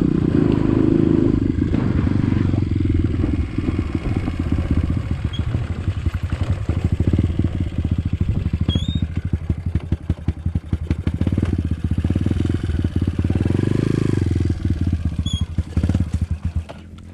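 Trail motorcycle engine running while riding, with a rapid, uneven pulsing rattle. It drops off abruptly near the end.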